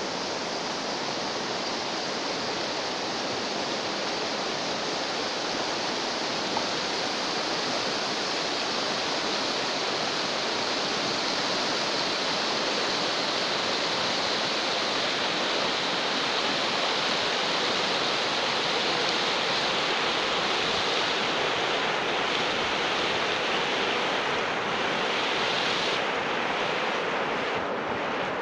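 Ardèche river rushing steadily over a shallow, stony rapid.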